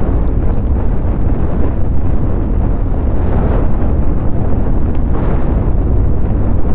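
Large fire burning: a steady, loud, low rumble of flames that swells now and then, with a few faint crackles.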